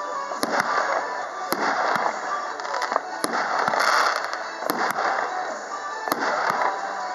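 Category F3 display fireworks firing aerial shells: sharp bangs about once a second, some in quick pairs. About four seconds in, a golden glitter shell sets off a dense crackle.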